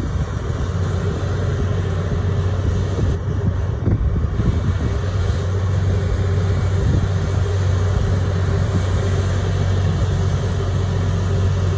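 Steady low engine drone with a constant hum, from the aircraft towing on the airport apron.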